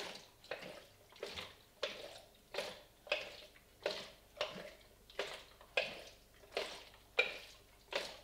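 Fixer sloshing inside a Paterson plastic film developing tank as it is inverted and turned over and over, a swish about every two-thirds of a second. This is the continuous agitation of the first 30 seconds of fixing black-and-white film.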